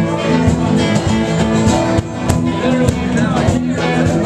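Live band playing guitar-led rock, an instrumental stretch with steady sustained chords and frequent sharp percussive hits.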